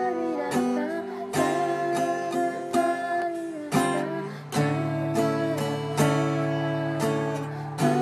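Acoustic guitar strummed in a slow, steady pattern, the chord changing every second or two.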